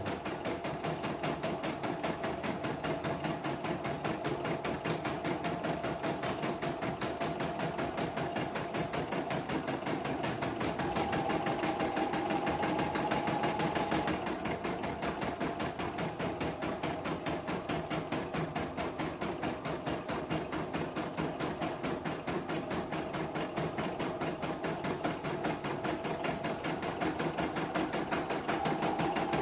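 CNY E960 portable embroidery machine stitching a design, its needle working in a rapid, even rhythm over the motor's hum. The hum rises in pitch for a few seconds midway, then settles back.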